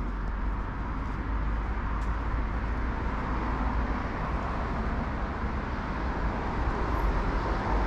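Steady city street traffic: a continuous rumble of passing car engines and tyres.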